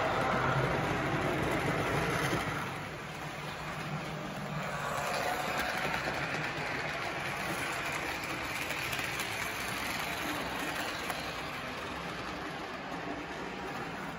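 HO-scale model freight train running on the layout track. Its cars roll along the rails and its locomotive motor runs steadily, louder for the first two seconds or so as the cars pass close by, then a steady lower running noise.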